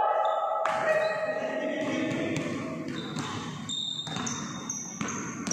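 Basketball bouncing on a wooden gym floor, several sharp knocks in a large hall, with players' voices near the start and thin high squeaks in the second half.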